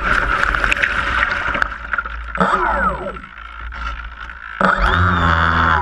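Electric motor and propeller of a HobbyKing Cessna 182 RC seaplane turning at low throttle as it taxis, with water noise from the floats. About four and a half seconds in, the motor throttles up to a louder, steady whine for the takeoff run.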